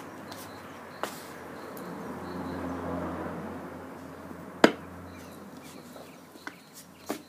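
A large plastic garden chess piece set down on the chess mat with one sharp click about four and a half seconds in, the loudest sound. A softer knock comes about a second in, and a low swell of background noise rises and falls in between.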